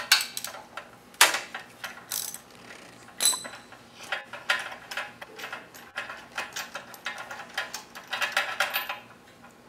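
A 3/8-inch socket ratchet on a long extension with a 5/8 spark-plug socket, clicking in short runs as its handle swings back while the spark plug is loosened. There are a few sharp metallic clinks near the start, and a fast run of clicks near the end.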